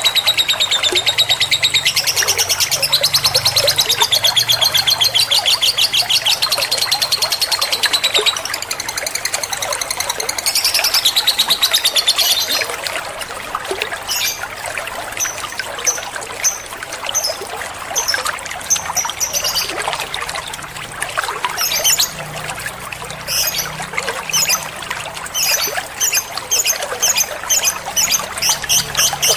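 Lovebird calls: a long, fast chattering trill for about the first twelve seconds, then shorter clusters of sharp high chirps.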